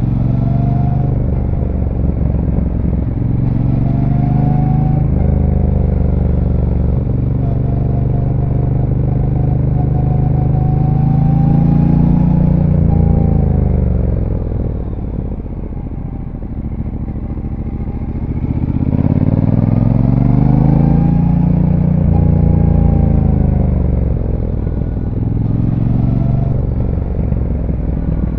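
Brixton Cromwell 1200's parallel-twin engine with its stock exhaust, heard from on board while riding. The revs climb and change through the gears, fall away and quieten about halfway through as the bike slows, then rise again as it accelerates out.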